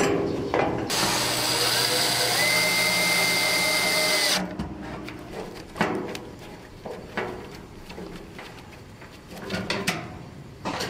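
A steel barbecue grill being put together with a screwdriver. A loud continuous mechanical ratcheting or whirring lasts about three and a half seconds, then gives way to scattered clicks and light metal knocks as screws are driven into the frame.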